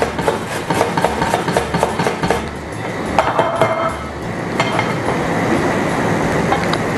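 Vegetables being grated on a metal box grater: quick, rhythmic scraping strokes, several a second.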